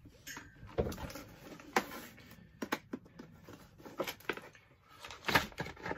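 Handling noise as a small rotary multi-tool is brought out and shown: irregular clicks, knocks and rustles, loudest near two seconds in and again near the end.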